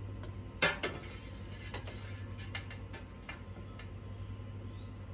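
Light clinks and clatter of a metal pot, utensils and glass canning jars being handled, with one louder clank about two-thirds of a second in, over a steady low hum.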